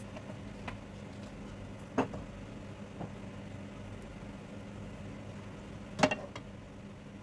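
A steady low hum over the faint simmer of a lidded pan on a gas stove. A light metallic knock comes about two seconds in, and near the end a metal frying pan clatters against the burner grate as it is gripped and moved.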